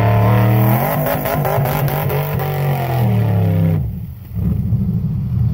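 Mud-bogging truck's engine revving hard as it churns through deep mud, its pitch rising and falling, with clatter over the top. About four seconds in it drops away sharply, and a lower, steadier engine drone follows.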